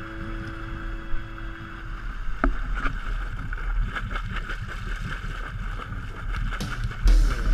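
Sportfishing boat on the move: engine rumble with water rushing along the hull and wind on the microphone. There is a sharp knock about two and a half seconds in and a loud surge of noise near the end.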